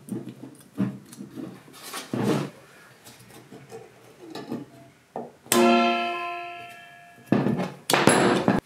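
Metal parts of a Vespa gear selector mechanism being handled with pliers: small clicks and knocks, then about five and a half seconds in a sharp metallic clang that rings and dies away over a second or so. Near the end comes loud clattering and scraping of metal on the workbench, which cuts off suddenly.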